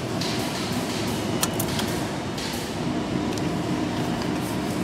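Steady mechanical hum and background noise, with a few light metallic clicks, two of them close together about a second and a half in, as a hinged metal flap on a vending machine is handled.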